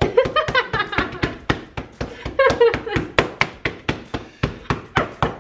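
A flat metal spatula blade patting gingerbread dough flat on a baking tray in place of a rolling pin: a quick, even run of soft slapping taps, about five a second.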